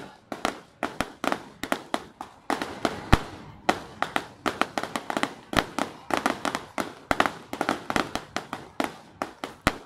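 Fireworks display: aerial shells bursting overhead in a rapid, irregular run of sharp bangs, several a second, often coming in quick clusters.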